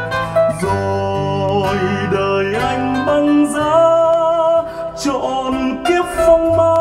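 Recorded Vietnamese ballad played back over hi-fi loudspeakers in a room, in an instrumental stretch with guitar and a held, slightly wavering melody line.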